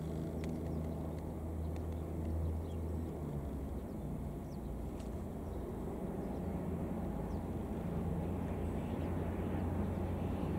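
A distant engine's steady low drone, with a few faint short clicks.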